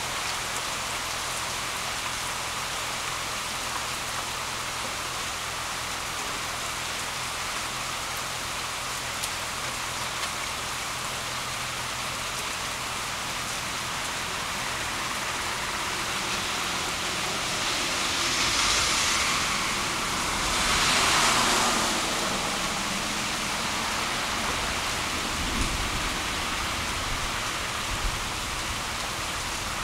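Heavy rain falling on trees, lawn and a wet road, a steady even hiss. About two-thirds of the way through it swells louder twice for a few seconds.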